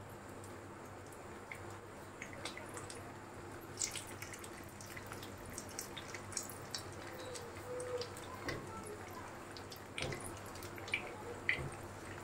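Beef kababs shallow-frying in oil in a frying pan: a steady low sizzle with scattered sharp pops and crackles of spattering oil, a few of them louder.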